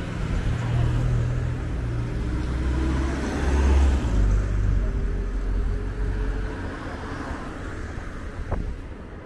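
Street traffic: a motor vehicle passing close by, its low rumble swelling to a peak about four seconds in and then fading. A single sharp click comes near the end.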